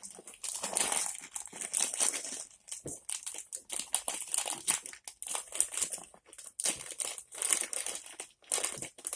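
Packaging being handled and crinkled, in irregular crackling bursts with short pauses between them.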